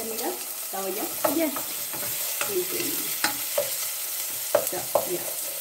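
Onion, cumin and garlic sizzling in hot oil in a stainless steel pot, stirred and scraped with a wooden spoon, with scattered clicks as the spoon knocks against the pot.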